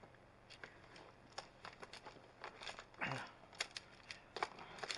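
Plastic magnetic building tiles clicking and clacking as they are handled and snapped together, about a dozen light clicks with a short louder clatter about three seconds in.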